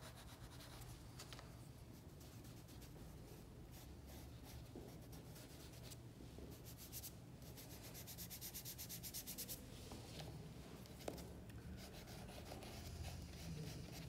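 Dry pastel being worked on paper, faint scratchy rubbing strokes, with a quicker run of short repeated strokes in the middle.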